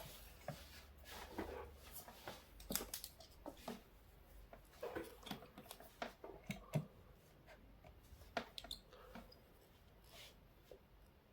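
Scattered small clicks and taps of a multimeter and its test leads being handled, as the meter is set to DC voltage to test a cordless drill battery.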